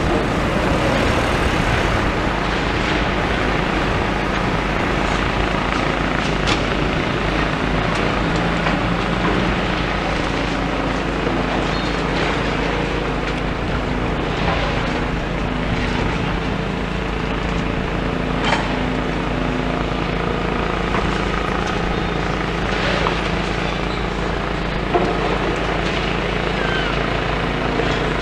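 Demolition excavator's diesel engine running steadily, with a few sharp knocks and clatters of rubble scattered through it.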